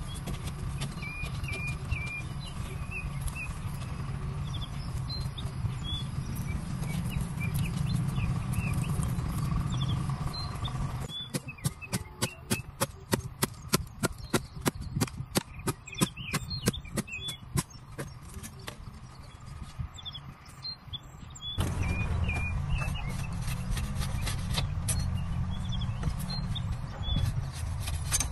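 Bamboo being chopped with a blade: a run of sharp knocks, several a second, lasting about ten seconds from roughly a third of the way in. Before and after it, a steady low rumble with small birds chirping.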